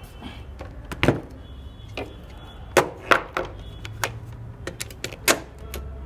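Handling noise: an irregular string of sharp clicks and knocks of hard objects being moved and set down, about a dozen, loudest about a second in, twice near three seconds, and once a little past five seconds, over a low steady hum.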